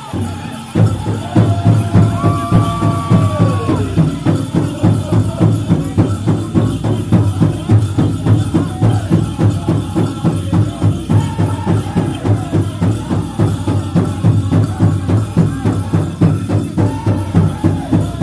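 Powwow drum group playing a men's chicken dance contest song. The big drum comes in sharply about a second in and keeps a steady fast beat, under a high lead singer's line that falls away, then the group singing.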